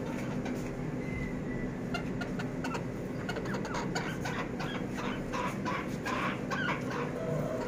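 Serama bantam chickens clucking in short, quick calls that come thicker from about two seconds in, over a steady low hum.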